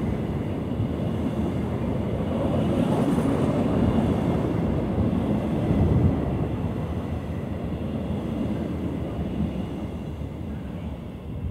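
Empty freight wagons of a metal train rolling past on the rails, a steady low rumble of wheels and running gear that fades gradually through the second half.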